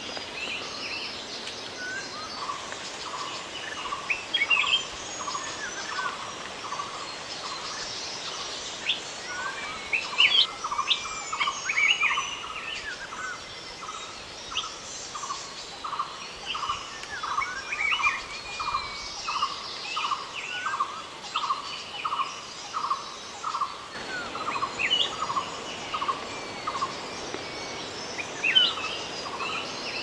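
Several wild jungle birds calling together. One repeats a short note about twice a second, with a pause in the middle of the series, while others add scattered chirps and whistles.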